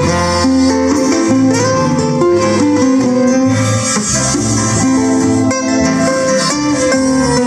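A band playing live, led by guitar, with sustained melody notes held over changing chords.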